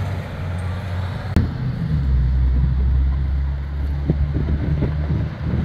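Road traffic passing: a low rumble that swells between about two and five seconds in, with a sharp click a little over a second in.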